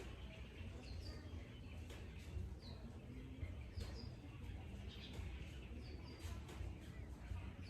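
A small bird chirping over and over, short high double chirps roughly once a second, over a steady low rumble of background noise.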